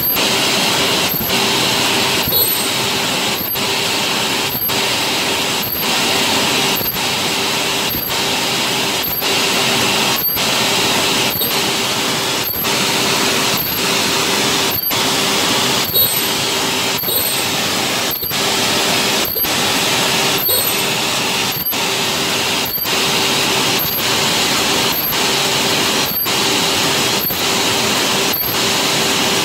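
Automated ultrasonic welding machine running steadily as it seals milk cartons: a continuous mechanical whir that breaks briefly about once a second, one weld cycle after another, each with a short high-pitched chirp.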